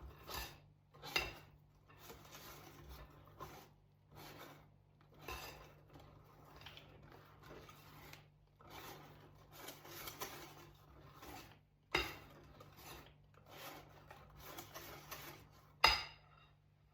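Hand whisk stirring flour into thick cupcake batter in a mixing bowl, with irregular scraping and rubbing strokes against the bowl. Two sharper knocks come about twelve seconds in and near the end.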